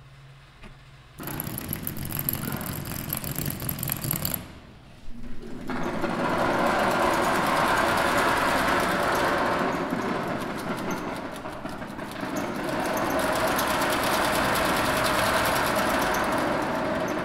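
Small electric motors spinning objects and wire arms, making a mechanical buzzing rattle. It starts about a second in, breaks off briefly around four seconds, then comes back fuller and keeps going.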